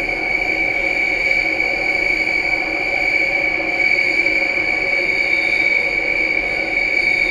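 Singapore MRT train running at speed, heard from inside the carriage: an even running noise with a steady high whine.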